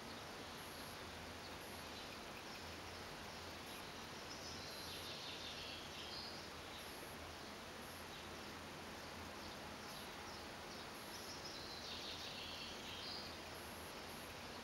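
Faint steady outdoor background noise with small birds chirping in the distance, once about four seconds in and again near the end.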